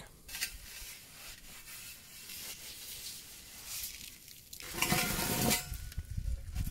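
A cloth rag rubbing and wiping an oil- and dirt-covered metal protection cover, a soft hissing scrub that gets louder for a moment about five seconds in.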